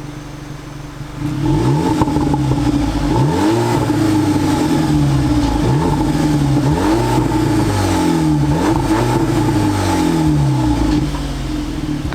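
Stock exhaust of a VW Polo GTI (AW) without a particulate filter, on its 2.0 TSI turbo four-cylinder. It idles, then is revved up and let fall back several times in quick succession before settling back to idle near the end.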